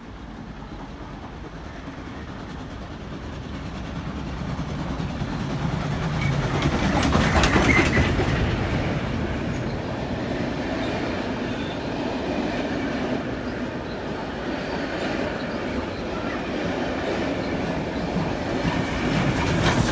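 Steam train hauling wooden passenger carriages passing through a station. Its rumble grows louder to a peak about 7 to 8 seconds in, then runs on steadily as the carriage wheels clatter past on the rails.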